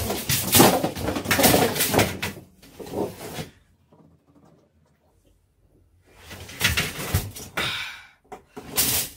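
A metal folding clothes drying rack clattering over onto the floor, a dense run of rattling knocks over the first few seconds. After a short quiet spell, more noisy clatter follows near the end.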